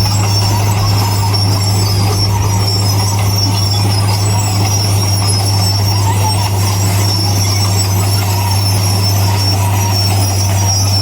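Bulldozer working, its diesel engine running steadily under load with a constant low drone and a thin high-pitched whine or squeal on top, typical of steel tracks and undercarriage.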